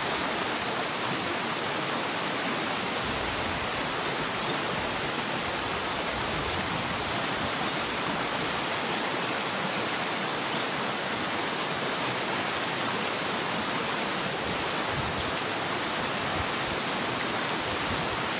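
Stream water running with a steady, even hiss.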